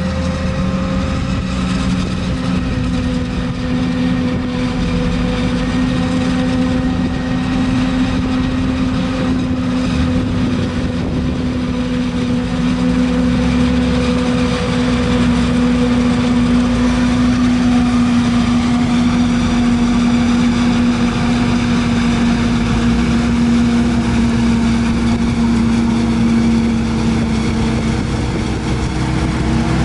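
Forage harvester and tractor engines running steadily while chopping corn, with a loud, even drone that drifts slightly in pitch.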